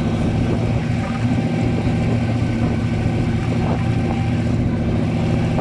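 Off-road vehicle's engine running steadily, with an even, low pitch.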